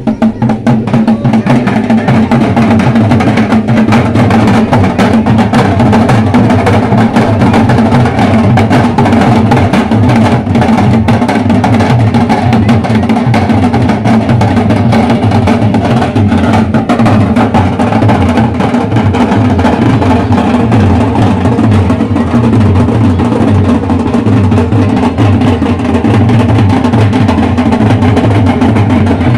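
Loud, fast, drum-heavy music, with dense rapid strokes over a steady low boom, distorted by its loudness.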